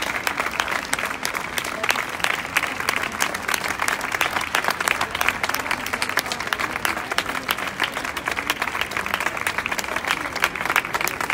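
Crowd applauding: many hands clapping in a dense, continuous patter that holds at an even level.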